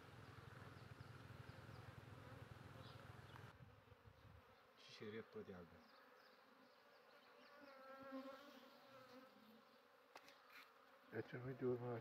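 Faint buzzing of a honeybee colony (Apis cerana) crowding over open hive frames.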